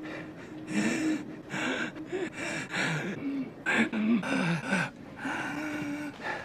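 A person wheezing and gasping for breath over and over, strained pitched squeaks that bend up and down several times a second, with a longer held wheeze near the end, as in an asthma attack.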